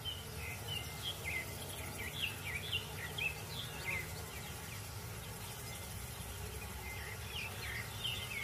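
Outdoor nature ambience: a steady low background hum with many short, high, falling chirps, busiest in the first few seconds and again near the end.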